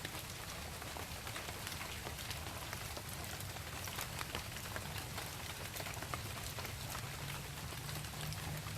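Steady rain falling on leaves: an even hiss dotted with many individual drop ticks, over a low rumble.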